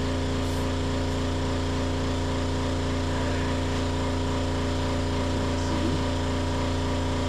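Air compressor running steadily while inflating a utility vehicle tire, a constant motor-and-pump hum.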